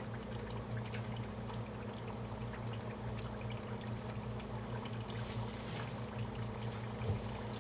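Potato chunks frying in hot oil in a pan: a steady sizzle with many small crackles and pops, over a steady low hum.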